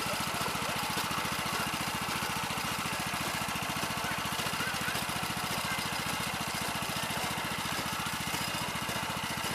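Small engine of a rice transplanter running steadily, with an even, rapid firing rhythm.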